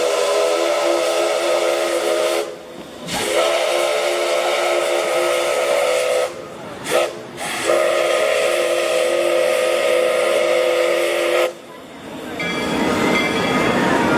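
Steam whistle on narrow-gauge Baldwin steam locomotive No. 340, sounding a chord of several notes. A blast already under way ends about two seconds in, then comes a long blast, a short one, and another long one: the long-long-short-long grade-crossing signal. From about 12 seconds the train is heard rolling past at low speed, with faint wheel squeal.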